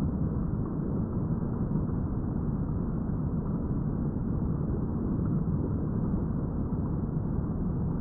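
Steady low noise with no sudden crack or clap.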